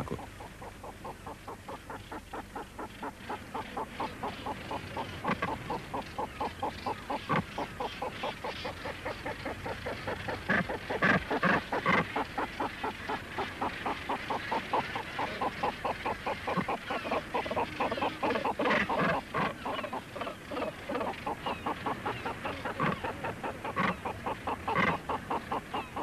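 Northern gannet chick begging, a rapid run of short repeated calls at about four or five a second, with a few louder calls midway. These begging cries prompt the parent to regurgitate fish into the chick's mouth.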